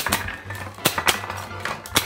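Background music with a steady bass line. Over it, several irregular sharp plastic clacks as toy launchers fire plastic balls and knock plastic ice blocks.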